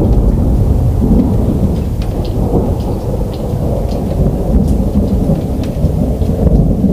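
Thunder rumbling on continuously in a heavy, low roll, with rain falling and scattered raindrop ticks.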